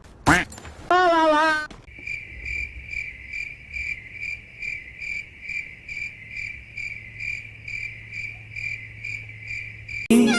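Crickets chirping in an even rhythm of about two to three chirps a second, the stock 'awkward silence' meme sound effect. It follows a short cartoon effect with sliding pitch at the start.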